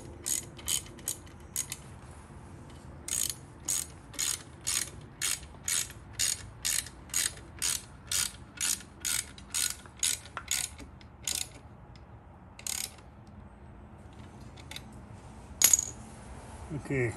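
Hand ratchet wrench clicking as it tightens down a nut extension: a short quick run of clicks, a pause, then a long steady run of about three clicks a second that thins out to a few stray clicks. A single louder knock comes near the end.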